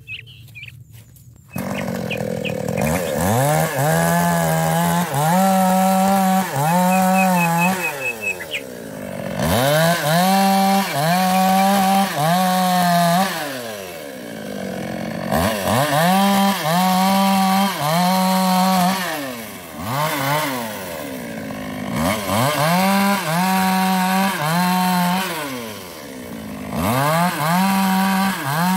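Small two-stroke chainsaw, a New West 628, cutting sengon logs. It comes in suddenly about a second and a half in, then revs up to full throttle and drops back to idle about five times, each high rev held for a few seconds while the chain cuts through the wood.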